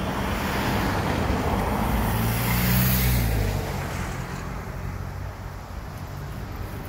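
A Land Rover Defender drives past close by, its engine and tyre noise swelling to loudest about three seconds in and then fading as it moves off along the road, with another car passing on the same road.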